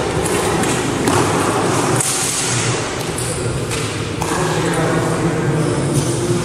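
A loud steady rushing noise with a low hum fills a reverberant hall. Over it come a few dull thuds and a metallic ping from two fencers sparring in padded gear with steel feder longswords, as they close into a grapple and break apart.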